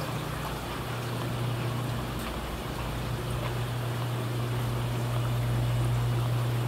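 Aquarium water trickling steadily, with a steady low hum of a pump underneath.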